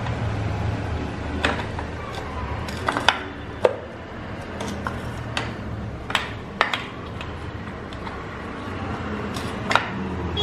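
Irregular metal clicks, taps and knocks as the outer side cover of a Royal Enfield Bullet 350 cast-iron engine is handled and pushed back into place over the kick-start side, with a steady low hum underneath.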